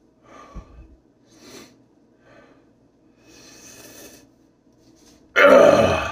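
A man breathing hard through a mouth burning from extremely hot sauce: several short breaths, then one loud, forceful exhale near the end.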